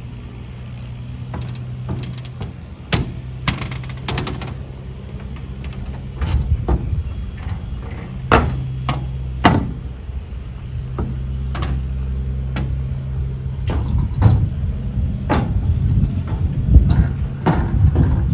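Footsteps on the loose walkway planks of a wood-and-steel railway viaduct, the boards knocking and clacking irregularly under each step. A low steady hum runs underneath.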